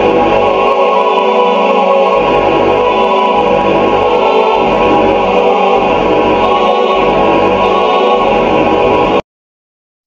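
Loud, dense choir-like music with many sustained layered tones. It cuts off abruptly to silence about nine seconds in.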